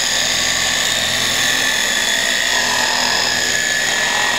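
Corded electric car polisher running at a steady speed, its foam pad buffing a painted body panel: an even, high-pitched motor whine.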